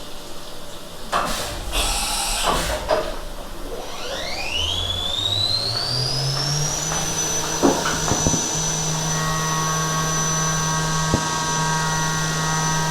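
CNC machine spindle spinning up: a whine that rises in pitch for about three seconds, then holds steady at speed, after a couple of short rushing noises. A few sharp clicks come while it runs.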